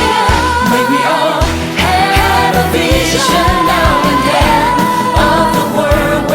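Background pop music with a sung melody of long held notes over a steady beat.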